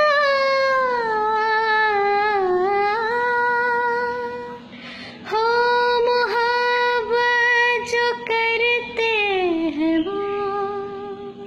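A woman singing long wordless held notes: the first drawn out for about four and a half seconds with a slow downward glide, then after a brief breath a second long note with small ornaments that slides down near the end and settles on a last held tone.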